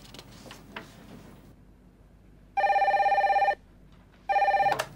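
Desk telephone ringing with an electronic warbling tone. There is one ring of about a second, then a shorter second ring near the end.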